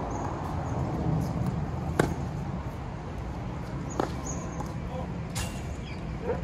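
Tennis balls struck by rackets in a baseline rally: sharp hits roughly every one and a half to two seconds, the loudest about two seconds in, over a steady low background rumble.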